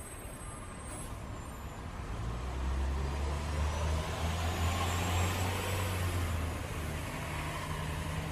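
Motor vehicle engine rumbling with road traffic noise, swelling over a few seconds as if driving past, then easing off.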